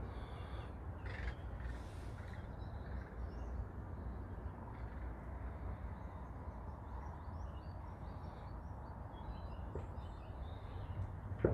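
Birds calling, with scattered short chirps over a steady low background rumble, and a single sharp knock near the end.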